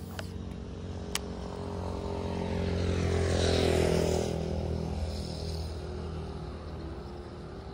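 A motor vehicle's engine passing on the adjacent road, growing louder to a peak about halfway through and then fading away. A single sharp click sounds about a second in.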